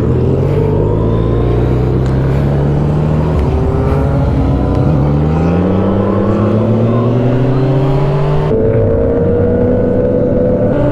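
Motorcycle engine pulling away and accelerating, its pitch climbing steadily, with the engine note changing abruptly about eight and a half seconds in.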